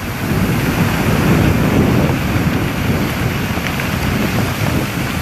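Heavy storm surf crashing onto the coast, a loud continuous wash of breaking waves, with wind buffeting the microphone.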